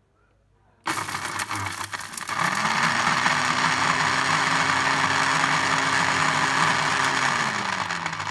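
Panasonic electric blender switched on about a second in, its motor running loud as the blade chops chunks of green mango in the jar. A steady motor hum settles in after a couple of seconds and drops in pitch near the end.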